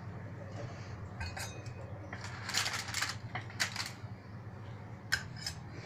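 A metal utensil scrapes under a baked meat patty and the baking paper beneath it crinkles, in a few short bursts between about two and four seconds in and once more near the end. A steady low hum runs underneath.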